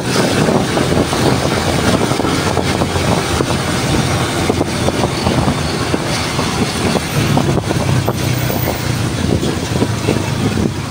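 Steady noise of a motorcycle ride: the engine running at an even speed with wind rushing over the microphone.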